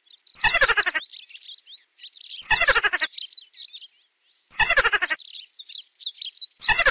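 Looped mouse squeaking sound effect: high chirping squeaks throughout, broken four times by a louder, rapidly pulsing squeal that falls in pitch, about every two seconds.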